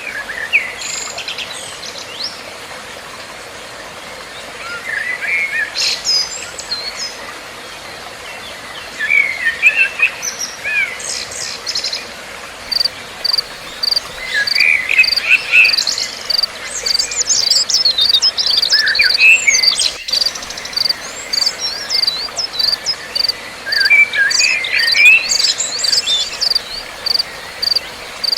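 Oriental white-eyes (pleci) twittering in quick, rapid warbling bursts every few seconds. From about twelve seconds in, a steady high chirp repeats about twice a second underneath.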